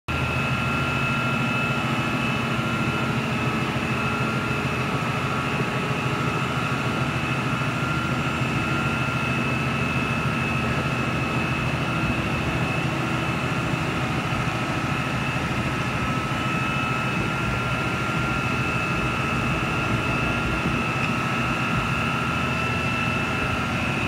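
ABG 7820 B asphalt paver's six-cylinder Deutz diesel engine running steadily, with a steady high-pitched whine on top.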